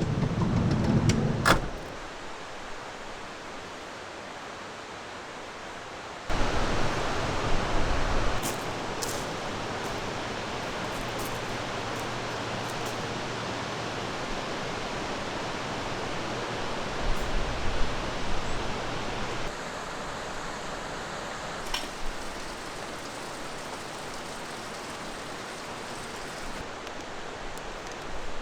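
Valley stream water rushing steadily, with the level jumping at a few cuts, and a few sharp clicks near the start and about eight seconds in.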